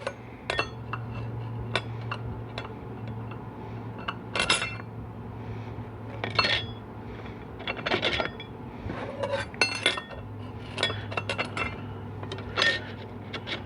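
Steel and friction clutch plates of a 4L80E transmission clinking as they are stacked one by one into a clutch pack over its hub: a string of irregular light metallic clinks, some ringing briefly, over a steady low hum.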